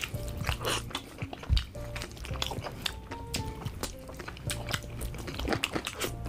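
Biting and chewing sounds of a man eating meat off a sauce-covered chicken leg: many short mouth clicks, irregularly spaced, over background music with held notes.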